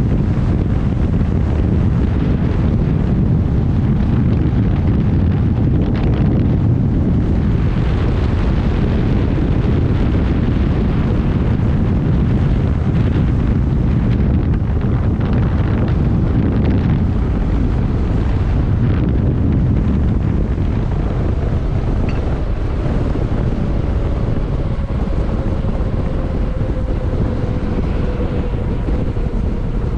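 Heavy wind rush buffeting the microphone of a 72 V electric bike at speed during a full-throttle speed run, around 55–58 mph. Over the last third a faint whine slides slowly down in pitch.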